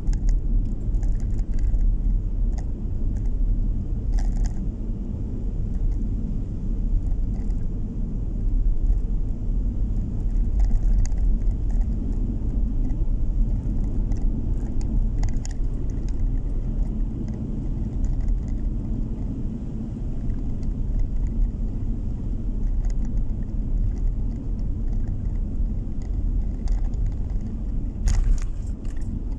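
A car driving along at a steady pace, heard from inside the cabin: a continuous low rumble of tyre and engine noise, with occasional light clicks and rattles.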